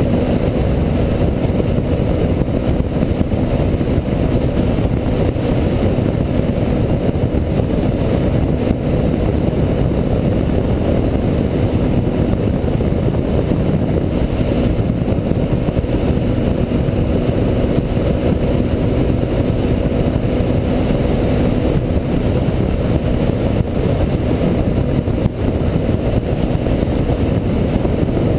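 Quad bike engine running at a steady cruising speed, holding a constant pitch, under a heavy low rush of wind and tyre noise.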